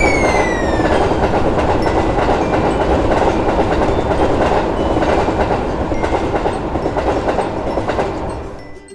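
A train passing at speed, with a steady rumble and wheels clattering over the rail joints. A tone falls in pitch in the first second, and the sound fades away near the end.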